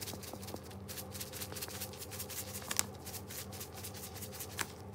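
Pepper being dispensed over the vegetables: a quick, continuous run of gritty rasping strokes, several a second.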